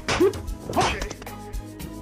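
Overdubbed video-game fight sound effects over music: two sharp hit sounds with short yells in the first second, then the music carries on.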